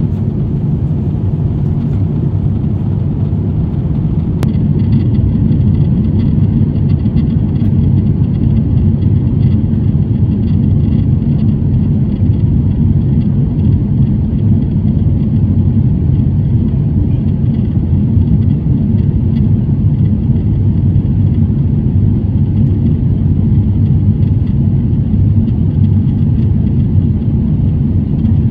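Airbus A350-900 cabin noise: a steady low rumble of the Rolls-Royce Trent XWB engines and airflow, heard from inside the passenger cabin. A sharp click comes about four seconds in, and the rumble grows louder and stays louder after it.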